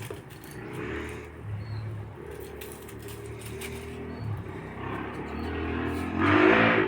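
Kittens meowing, with the loudest meow near the end.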